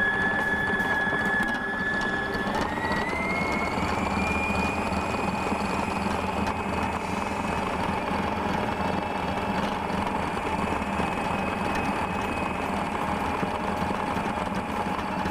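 Electric stand mixer's motor running steadily as it mixes biscuit dough, with a constant whine that rises in pitch about two and a half seconds in and then holds.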